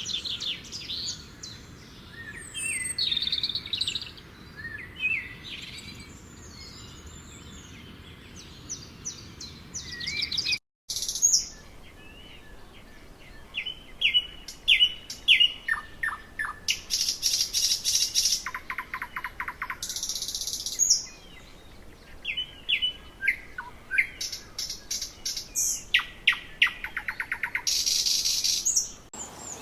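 Songbirds singing: many short chirps and whistled notes with fast trills, over a faint steady background hiss. The sound cuts out completely for a moment about eleven seconds in.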